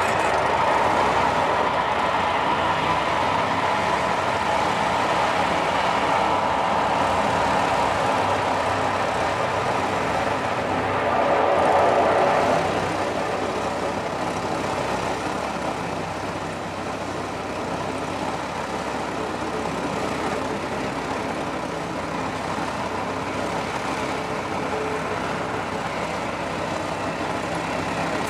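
Lockheed C-130H Hercules' four Allison T56 turboprop engines running as the aircraft taxis: a steady propeller and turbine drone. It swells briefly about twelve seconds in, then settles a little quieter.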